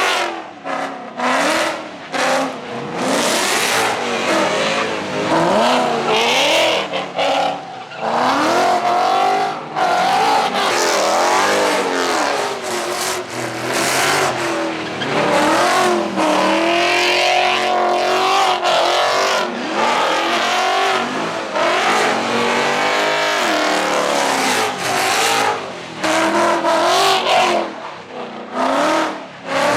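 Car engines revving up and down again and again as cars spin in the pit, over a steady hiss of spinning tyres.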